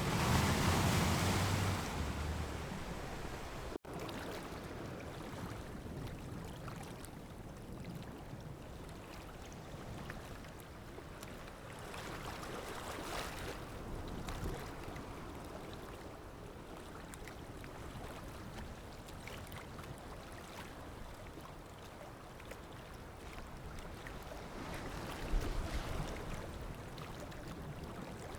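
Sea waves surging and washing in, a steady rushing of water with a loud surge at the start and gentler swells about halfway through and near the end. There is a momentary dropout in the sound about four seconds in.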